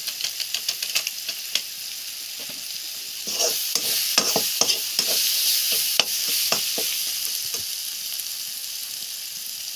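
Spice masala sizzling in hot oil in a metal kadhai while a metal spatula stirs and scrapes it, with repeated clacks of spatula on pan. The sizzle grows louder about three seconds in, and the stirring knocks die away near the end.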